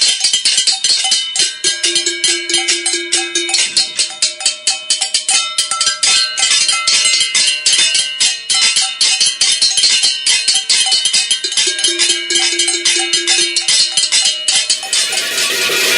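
Pots and pans being beaten in a cacerolazo protest: a continuous rapid clanging of metal strikes, several a second, each ringing briefly. Near the end it gives way to strummed guitar music.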